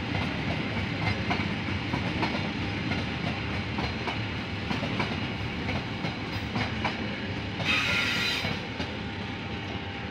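Passenger train coaches rolling past, their wheels clicking over the rail joints over a steady rumble, with a brief high screech from the wheels about eight seconds in. The rumble eases a little near the end as the last coach goes by.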